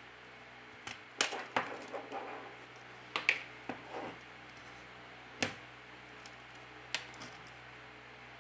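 A phone's plastic middle frame clicking and scraping as its clips are pried loose with a metal blade and flat prying tool. It gives a series of sharp irregular clicks, the loudest a little over a second in and about three seconds in, with short scrapes between them.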